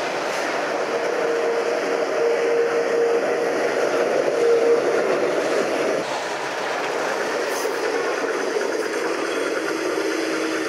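A vintage electric tram running on street rails over cobbles as it passes close, a steady rumble of wheels and running gear. A steady whine sounds for a few seconds in the first half, and a lower one comes in near the end.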